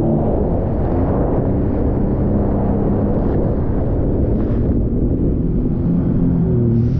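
Personal watercraft engine running under way, its pitch wavering up and down, beneath heavy wind buffeting on the microphone and the rush of water and spray along the hull.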